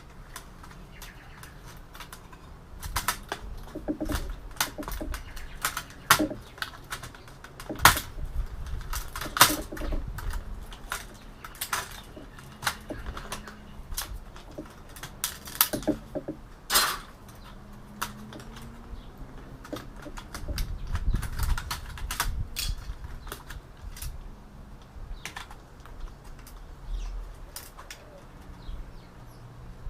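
Irregular clicks, knocks and clatter of plastic and metal computer parts being handled and pulled apart by hand while stripping an all-in-one PC, with a low scraping rumble about two-thirds of the way through.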